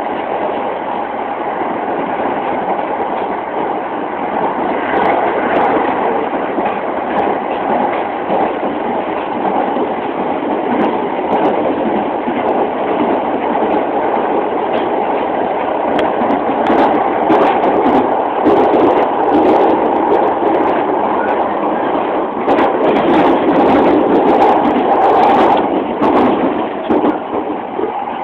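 Inside a 209-series electric commuter train running along the line: steady wheel and rail noise, with a run of sharp clicks and clatter in the second half, heard through a mobile phone's microphone.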